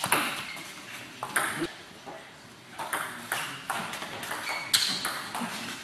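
Table tennis rally: the celluloid ball clicks sharply off the rubber-faced bats and the table in quick, irregular succession.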